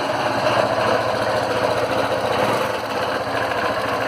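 Honda CB190R single-cylinder engine running with a rapid mechanical clatter: valve tapping, and what seems to be a worn crankshaft bearing.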